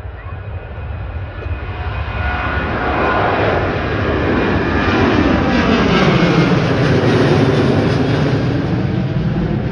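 Twin-engine jet airliner climbing out at takeoff power and passing low overhead. Its jet engine noise grows steadily louder and is loudest in the second half, with a sweeping shift in tone as it goes over.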